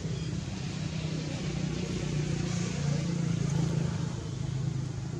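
A motor vehicle's engine running nearby, a steady low hum that grows louder about three seconds in and then eases off.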